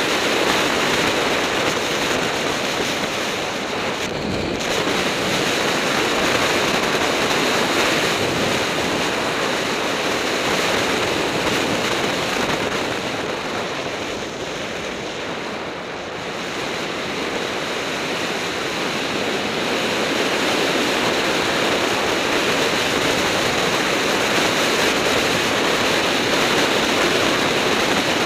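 Wind rushing over the microphone of a camera on a bicycle descending fast, a steady loud roar of air. It eases a little about halfway through, then builds again.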